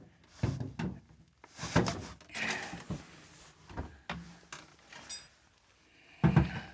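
Plastic latches of an Indesit washing machine's lower kick panel clicking and scraping as a flat tool pries them loose: a series of irregular short clicks and knocks.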